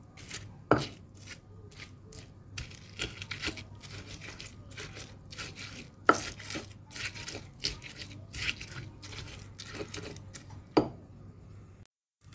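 Stone pestle (ulekan) pounding and grinding corn kernels, shallots and chillies in a stone mortar (cobek): a run of stone-on-stone knocks and crushing scrapes, with a few sharper, louder knocks. The sound cuts off suddenly near the end.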